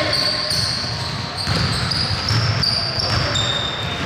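Basketball bouncing on the court in a game, with repeated short high squeaks of sneakers on the floor.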